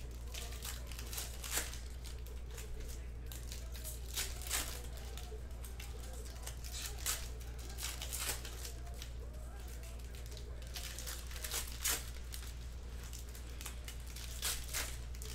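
Foil trading-card pack wrappers of 2020 Panini Mosaic football cards being torn open and crinkled by hand, in irregular sharp crackles, over a steady low hum.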